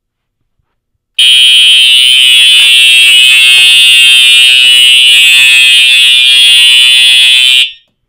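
Fire alarm horn sounding one loud, steady, unbroken tone that starts about a second in and cuts off suddenly near the end. It is the panel going into alarm from a smoke detector set off with canned test smoke, showing that the detector now works with its DIP switch set for 12–24 V.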